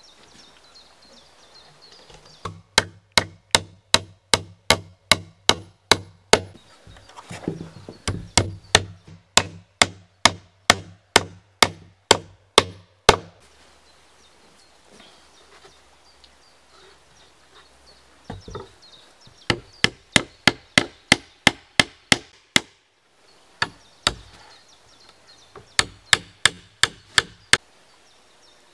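Hammer driving nails into a wooden plank door, struck in steady runs of about three blows a second. There are four bursts of hammering with short pauses between them.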